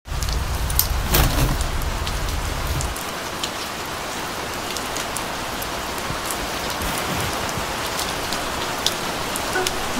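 Steady rain falling, with scattered sharp drops ticking close by. A low rumble sits under the rain for the first three seconds and cuts off suddenly.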